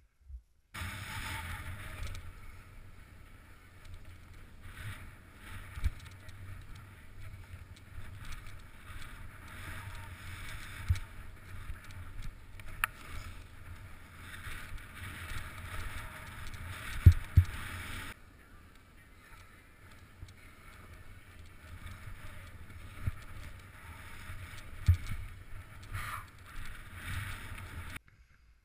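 A board or skis sliding and scraping down snow, a steady rushing hiss with several sharp thumps from bumps along the way. The sound cuts off abruptly twice as one run gives way to another.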